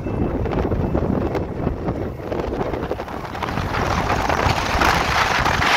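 Road rumble and wind rushing over the microphone from a moving car. A louder hiss builds over the second half.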